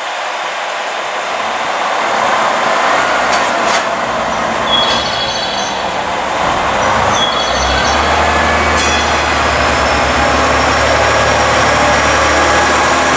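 KiHa 47 diesel railcar pulling away from a station platform: air hissing from the brakes releasing, two short high squeals, then from about 8 seconds in the diesel engine throttles up into a steady low drone as the railcar gets under way.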